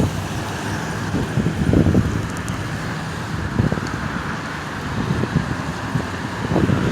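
City street traffic noise with wind buffeting the microphone in irregular low thumps.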